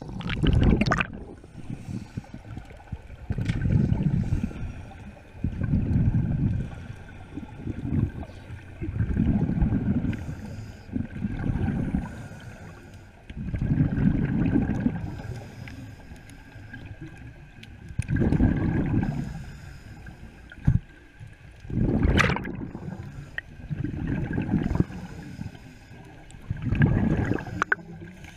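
Scuba diver's breathing heard underwater: bursts of exhaled bubbles from the regulator, a low gurgling rumble every two to four seconds, over a faint steady whine.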